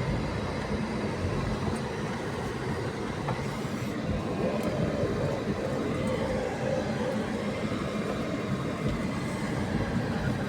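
A motor vehicle on the move: steady rumbling engine and road noise.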